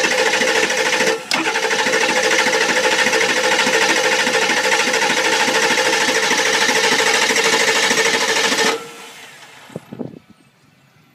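Ford 7.3 Powerstroke V8 diesel being cranked on its starter with a glow plug out for a compression test. The cranking has an even, steady rhythm, consistent with the cylinder passing with good compression. It stops about nine seconds in and is followed by a couple of light clicks.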